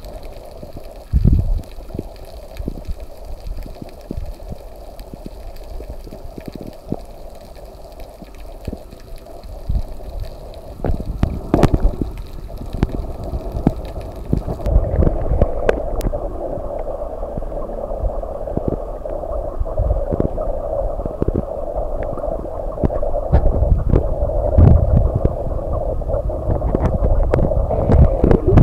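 Underwater sound picked up by a snorkeler's camera: water rushing and gurgling, with scattered clicks and knocks. About halfway through, the hiss in the upper range drops away.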